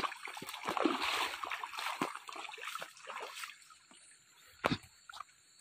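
Footsteps through wet, muddy ground and grass, a rustling, splashing wash for the first few seconds that then dies down, with one sharp knock near the end.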